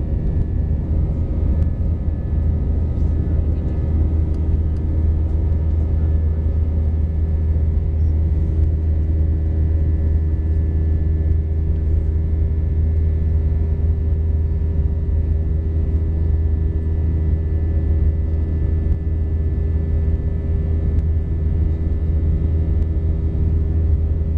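Cabin noise inside an Airbus A319 climbing after take-off: a steady low rumble of the jet engines and the air rushing past, with a few steady hum tones above it.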